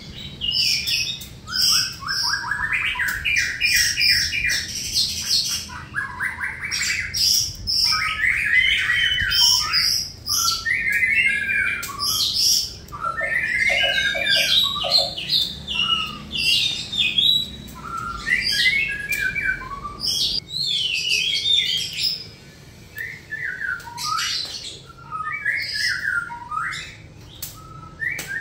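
Songbirds singing and chirping almost without pause, in quick runs of rapidly repeated notes, some stepping down in pitch, and short trills.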